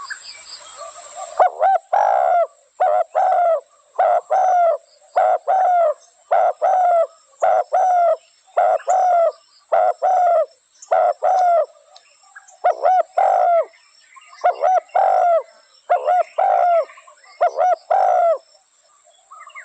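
Spotted dove cooing: a long run of short paired coos, about one pair a second, each note dropping slightly in pitch, with a brief pause past halfway.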